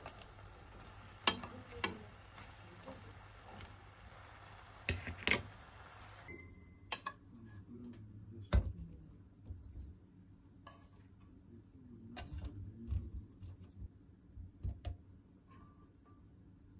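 Yakitori skewers in a frying pan of bubbling sauce, turned with bamboo chopsticks: a faint sizzle under sharp clicks of chopsticks and skewers against the pan. About six seconds in the sizzle stops short. The skewers are then lifted onto a plate with scattered clicks and knocks of pan, chopsticks and plate, and faint murmured voices behind.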